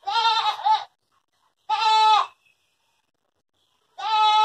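A domestic cat yowling while it holds a snake it has caught, the drawn-out call cats make when guarding prey. Three long calls, each just under a second and steady in pitch, the last starting near the end.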